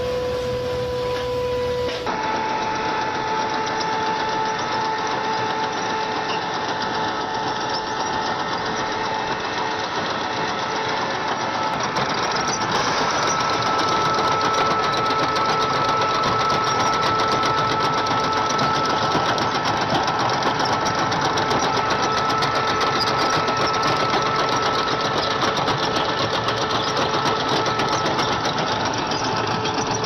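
Heavy road-construction machinery running: a dense, steady mechanical clatter with a high, steady whine over it. The sound changes abruptly about two seconds in and again about twelve seconds in.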